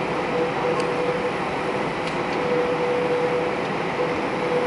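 Airbus A320 cabin noise while taxiing onto the runway with the engines at idle: a steady rush with a whine that fades in and out, and a few faint ticks.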